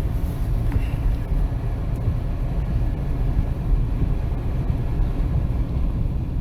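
Steady low rumble of a vehicle driving, engine and tyre noise heard from inside the cabin.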